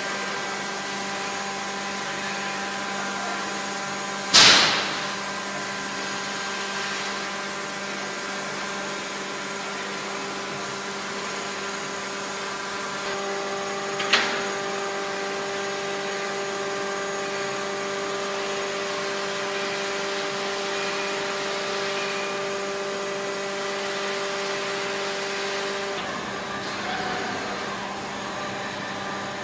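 Steady industrial machinery hum in a heavy-engineering shop, with a loud sharp bang about four seconds in and a smaller one about ten seconds later. The pitch of the hum shifts twice.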